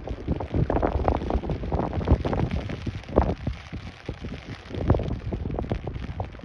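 Wind buffeting the phone's microphone in irregular gusts, with several loud surges.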